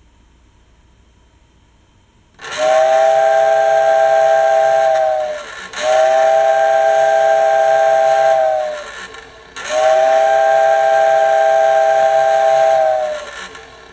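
1990 Tyco model train whistle unit sounding three long blasts, each about three seconds, a hissy chord of several tones like a steam whistle. Each blast rises in pitch as it starts and sags as it dies away.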